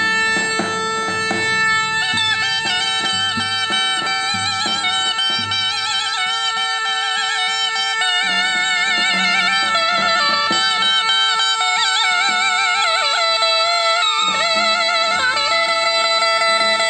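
Zurna playing a heavily ornamented folk melody, its pitch wavering and trilling, over a steady held drone note.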